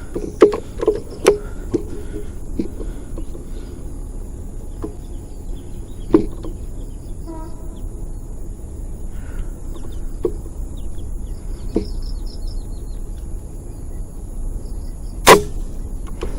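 One shot from a silenced air rifle, a single sharp crack about fifteen seconds in, over steady wind noise on the microphone. A few lighter clicks come in the first couple of seconds.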